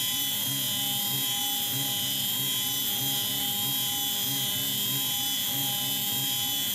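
CNC router's high-speed spindle whining steadily as a 4 mm end mill spirals down into cast aluminum plate, cutting a 6.8 mm hole, with a low pulsing about three times a second.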